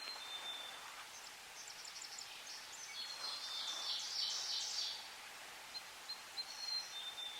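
Songbirds singing in woodland: scattered short high notes, with a denser, louder stretch of song from about three to five seconds in, over a steady faint hiss.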